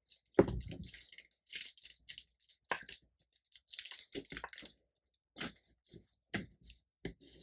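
Crinkly parchment paper (air fryer liner pockets) rustling and crackling in irregular bursts as it is handled and pressed down onto a page, with a sharper knock about half a second in.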